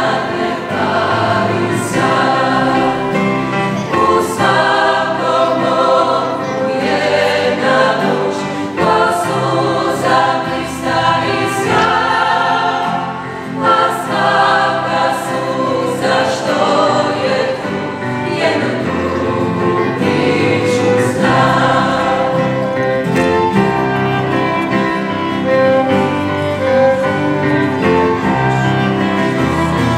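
Choir of mostly female voices singing in harmony, accompanied by violins and a guitar.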